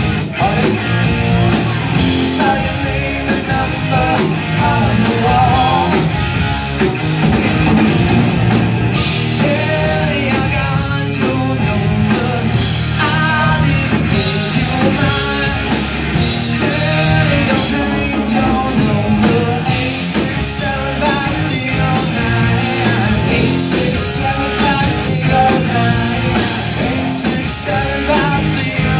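Live rock band playing: electric guitars, electric bass and drum kit, with a sung lead vocal.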